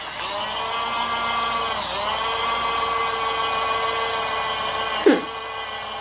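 The small battery-powered motor of a toy-sized mini washing machine whining steadily as it spins a wet makeup sponge in its drum. Its pitch sags briefly at the start as the sponge is pushed down into it, and again about two seconds in, then holds steady. A short knock comes about five seconds in.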